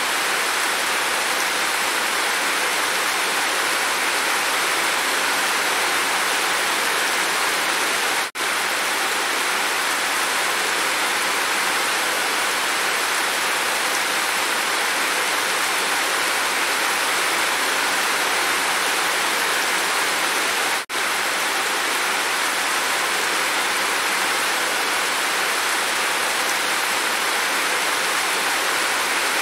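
Steady rain, a dense even hiss, that cuts out for an instant twice, about 8 and 21 seconds in.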